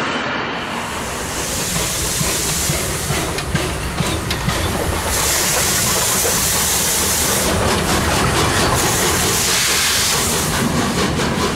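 ČSD class 477 'Papoušek' steam tank locomotive pulling away past at close range, steam hissing out around its cylinders in three long blasts over the steady rumble of its wheels.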